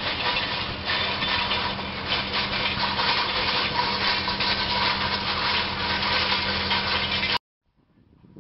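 Jet aircraft engine noise: a steady rushing sound with a steady whine held through it, cutting off suddenly near the end.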